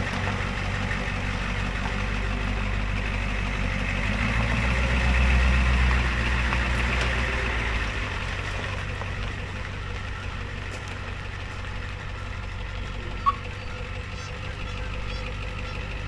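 Ford F-350 ex-fire truck's diesel engine running as the truck pulls away, louder from about four to eight seconds in, then fading as it moves off.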